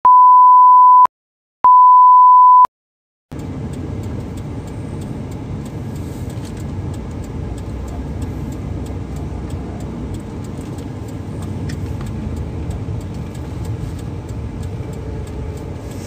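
Two loud beeps of one steady pitch, each about a second long, then, from about three seconds in, the steady rumble of engine and tyres inside a moving car.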